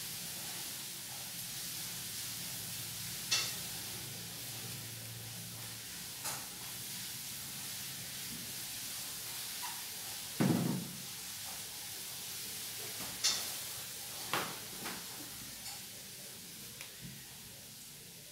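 Steady background hiss with a few scattered light knocks and clicks. The loudest is a single dull thump about ten seconds in.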